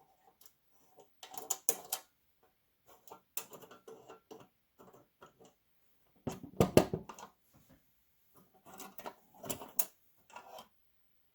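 NATO Morse key being handled, its lever and metal parts clicking and knocking in irregular clusters, with the loudest cluster a little past the middle.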